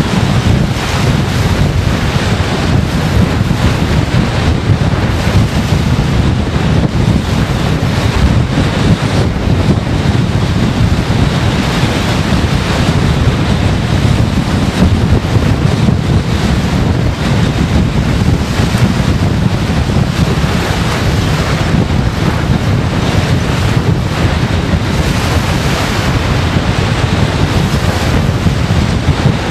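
Strong storm wind blowing across the microphone: a loud, unbroken rushing noise with heavy low buffeting.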